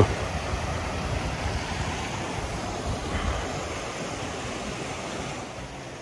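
Steady rush of flowing spring-fed stream water, with wind rumbling on the microphone.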